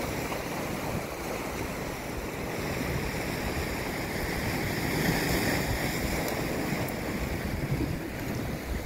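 Sea surf washing steadily against the rocks of a seawall, mixed with wind on the microphone.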